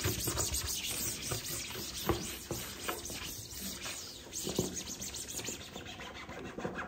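Disinfecting wipe rubbed back and forth across a hard desktop: an irregular scratchy swishing, with a couple of light knocks about two and four and a half seconds in.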